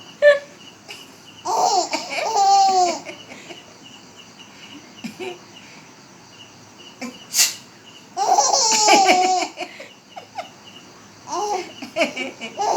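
A four-month-old baby girl laughing in three breathy bursts whose pitch slides up and down, with short sharp sounds in between, one right at the start and one a little after seven seconds.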